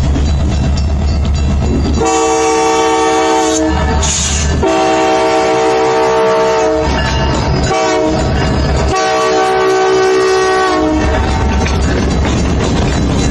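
Canadian Pacific diesel locomotives passing close by. The lead unit sounds its multi-tone air horn for a grade crossing in four blasts: two long, a short, and a final long. The diesel engines' low rumble runs underneath and between the blasts.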